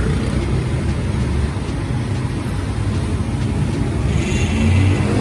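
Steady street traffic noise: a continuous low rumble of passing motor vehicles.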